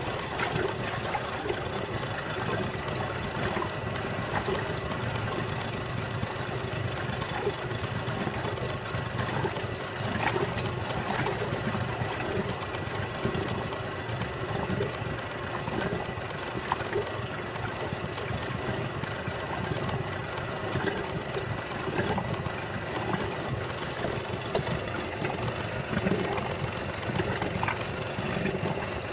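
Steady wind and water noise around a small fishing boat on open water, with a faint steady high tone and scattered small clicks and knocks.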